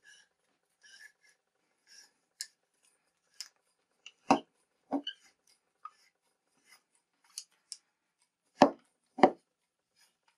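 Copper pipe being cut with a handheld rotary pipe cutter turned around the tube: faint scraping of the cutting wheel, with a few sharper clicks, two close together near the middle and two more near the end.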